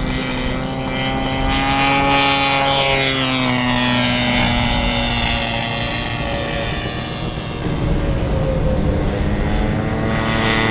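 Radio-controlled model warbird's engine and propeller running at power, its pitch sliding up and down as the plane takes off and flies past.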